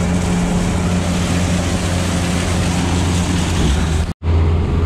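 Sherp amphibious ATV's diesel engine running steadily as the vehicle crosses a pond on its tyres, with a wash of churned water. The sound drops out for an instant about four seconds in, then the engine drone resumes.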